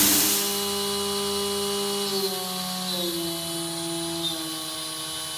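CNC router spindle motor on a converted Morbidelli machine, running with a steady whine that steps down in pitch a few times. It settles at a lower speed near 10,000 rpm. A short burst of hiss comes at the very start.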